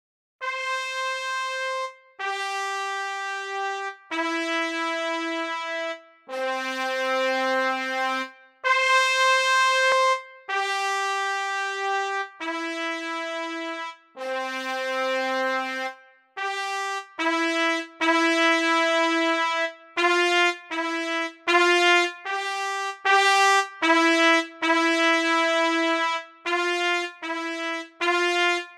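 Solo instrumental melody played one note at a time on a single instrument. For about the first sixteen seconds the notes are slow and held, each with a short break between; after that the notes come shorter and quicker.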